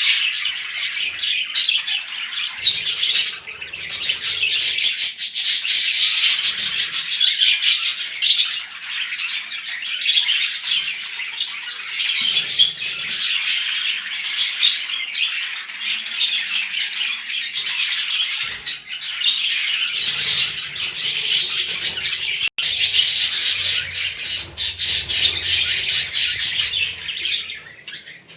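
Budgerigars chattering and squawking without a break, many birds calling over one another.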